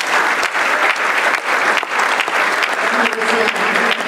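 Audience applauding: a steady, loud clatter of many hands clapping.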